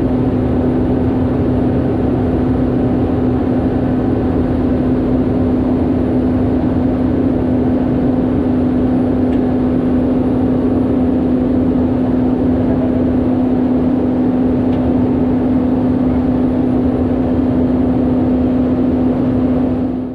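Cessna 208B Grand Caravan's PT6A turboprop engine and propeller heard from inside the cockpit in flight: a steady drone with a strong, even propeller hum. It fades out at the very end.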